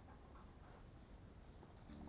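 Near silence: faint outdoor background with a few soft scattered ticks, and music beginning to fade in at the very end.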